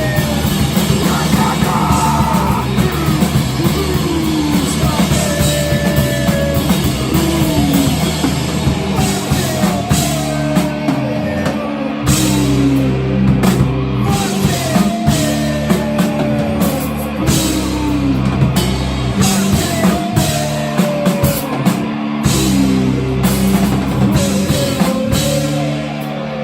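Live rock band playing loudly: drum kit and bass under a melodic line that slides downward and repeats about every two seconds.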